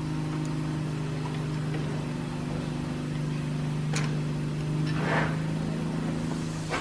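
Steady machinery hum, with a single light metallic clink about four seconds in and a short scrape about a second later as the cast-iron engine part is handled.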